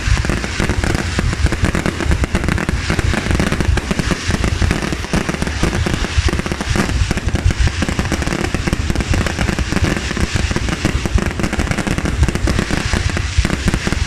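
Fireworks display: a dense, continuous barrage of bangs and crackles with no break.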